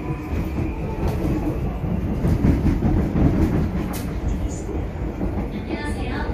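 Seoul Subway Line 2 electric train running, heard from inside the carriage: a steady rumble of wheels on track with scattered rail clicks.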